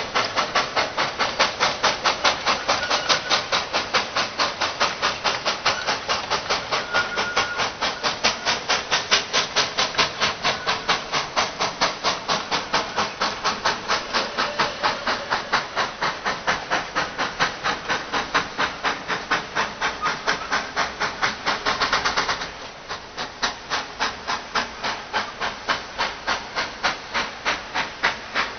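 Exhaust beat of a Kerr Stuart two-foot-gauge steam locomotive hauling a freight train, a steady chuffing of about four beats a second. About 22 seconds in there is a brief louder burst, then the beat carries on noticeably fainter.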